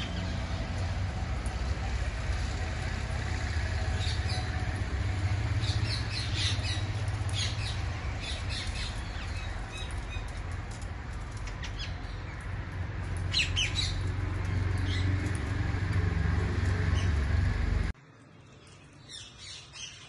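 A flock of rose-ringed parakeets giving short, shrill squawks in scattered clusters over a steady low rumble. The rumble cuts off abruptly near the end, leaving a few fainter calls.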